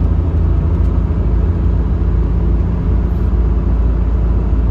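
Steady low rumble of engine and tyre noise inside the cabin of a Suzuki Jimny JB23 cruising on an expressway.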